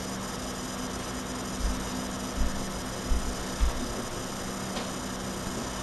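Steady electrical hum and hiss from a webcam microphone, with a few soft, dull low thumps about halfway through.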